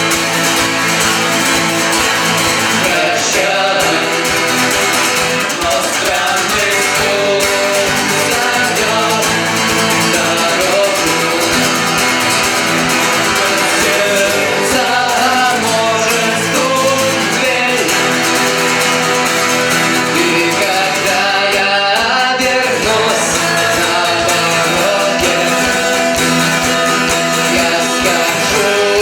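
Live band music: acoustic guitar playing with a voice singing a melody over it.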